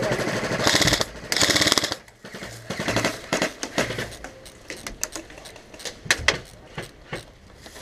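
Airsoft rifle firing two short full-auto bursts, rapid clicking shots, in the first two seconds, followed by scattered single sharp cracks.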